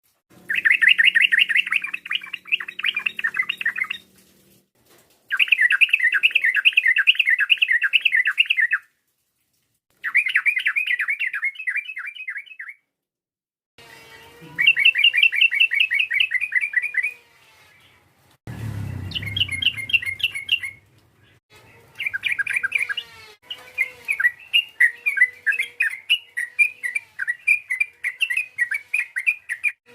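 Yellow-vented bulbul (trucukan) calling in bursts of rapid, bubbling chattering notes, each burst lasting a few seconds with short pauses between. In the last few seconds the notes come more spaced and run on without a break.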